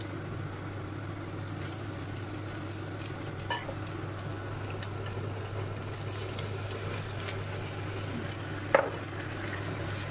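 A metal spoon stirs sauce in a ceramic bowl, then the sauce is poured into a hot non-stick pan and sizzles on the fried spring onion stalks. Two sharp knocks of the spoon against the bowl, about three and a half seconds in and near the end, over a steady low hum.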